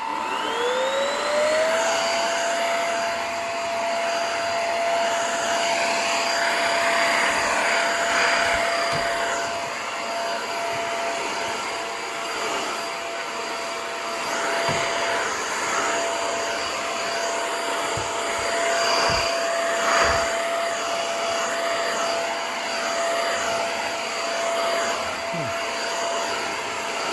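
Cordless stick vacuum cleaner with a bristle brush head switching on, its motor whine rising and settling within about two seconds, then running steadily while it cleans the carpet. A few low knocks come from the head being pushed about.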